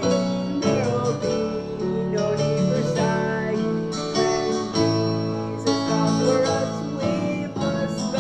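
Recorded song music with guitar playing, held at a steady level.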